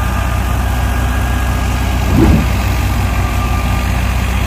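Tractor-driven wheat thresher running steadily with a low drone as sheaves of wheat are fed into it, and a brief louder surge about two seconds in.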